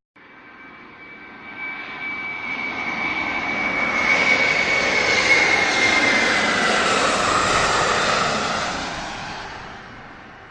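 An aircraft flying past: its engine noise swells to a peak about halfway, then fades away, with a high whine that slides down in pitch as it passes.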